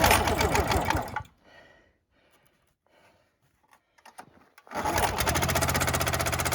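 Small pull-start gas engine on a cold start: it fires for about a second and dies, then catches again about five seconds in and settles into a steady fast run. It is running rich on choke.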